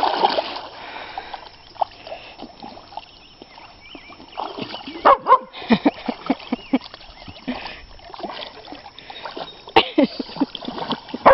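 Dogs scuffling and splashing in shallow river water, one dog pushing another around, with a few short, sharp dog yelps mixed in, the loudest about five seconds in and near the end.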